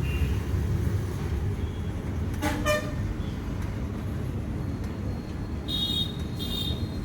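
Street traffic running steadily in the background. A vehicle horn honks about two and a half seconds in, and two short, high-pitched toots follow near the end.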